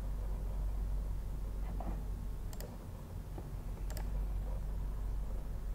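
Two sharp computer-mouse clicks about a second and a half apart, over a steady low hum.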